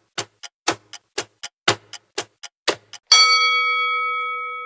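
Countdown-timer clock sound effect ticking about four times a second, alternating loud and soft ticks. About three seconds in the ticking stops and a bell chime sounds, marking the answer reveal, and rings on and slowly fades.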